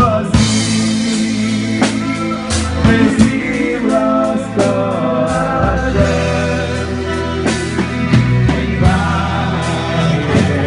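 Live band playing with a singer: sung melody over a drum kit with regular drum hits and steady low bass notes.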